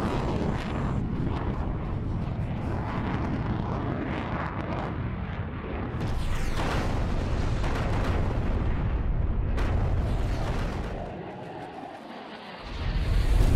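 Heavy rumble of jet aircraft and exploding bombs, with a falling whine about six seconds in. The rumble dies down near the end, then a loud blast hits just before the end.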